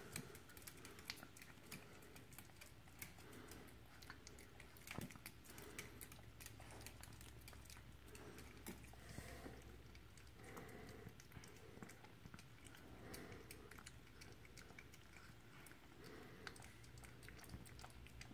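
A chihuahua licking and chewing peanut butter, faint quick wet clicks and smacks of its tongue and mouth, going on rapidly and irregularly.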